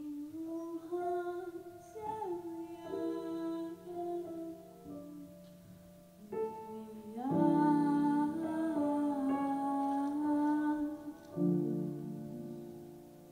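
A girl singing solo into a microphone, a slow melody with long held notes, accompanied by piano chords. She pauses briefly about six seconds in, then comes back louder.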